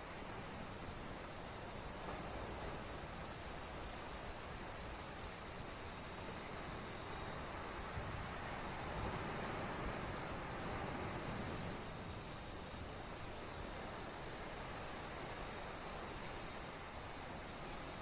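Ocean waves washing steadily, swelling a little midway, with a short high chirp repeating evenly about once a second.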